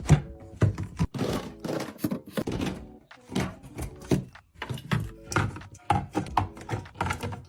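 Items being set down and moved about while a mini fridge is restocked: a quick, irregular run of clunks and knocks, some with a short ringing clink.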